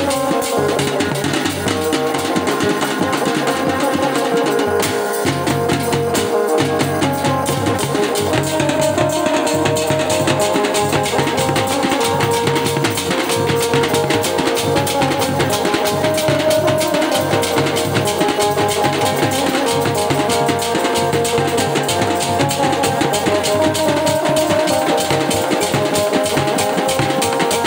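Live dhumal band music: an electronic keyboard playing a held melody over fast, steady drumming and cymbal strokes.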